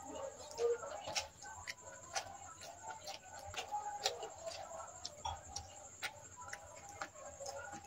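Eating sounds: a run of small, irregular clicks and smacks, several a second, from chewing and handling food while eating rice and chicken curry.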